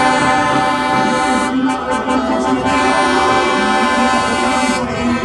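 Several truck air horns sounding at once, their held notes overlapping into a loud, sustained chord that shifts pitch a couple of times.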